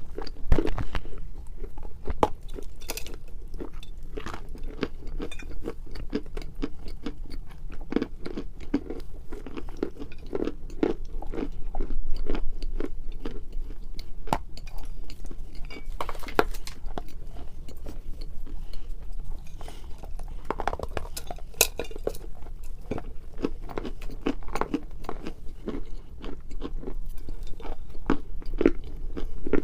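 Close-up biting and chewing of a dry, brittle chalky stick: irregular crisp crunches and crackling as it is bitten and ground between the teeth, with louder bites every few seconds.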